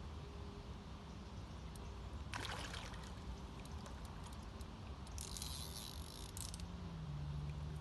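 Water trickling and splashing in two short bursts, over a low steady hum.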